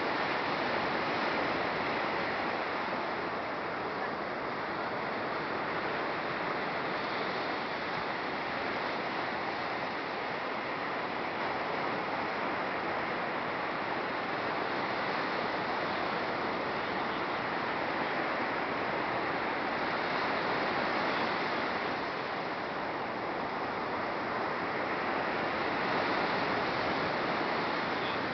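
Ocean surf breaking on a sandy beach: a steady wash that swells and eases every several seconds.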